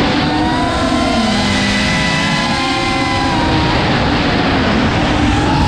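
FPV quadcopter's electric motors and propellers whining in flight, several pitches gliding up and down as the throttle changes, over a constant rush of air noise.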